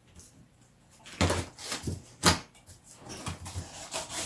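Scissors cutting packing tape on a large cardboard box and the flaps being pulled open: a few short scraping, rustling bursts about a second in and again around two seconds, with lighter cardboard handling between.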